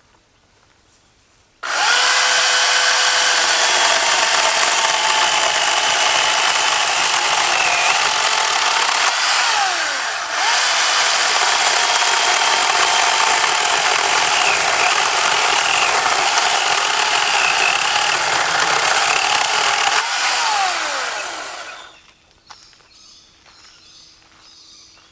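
Ryobi 18V One+ 12-inch brushless cordless chainsaw switching on abruptly and running at full speed with a high electric whine. It eases off briefly about halfway through, then runs again and winds down with a falling pitch when the trigger is released.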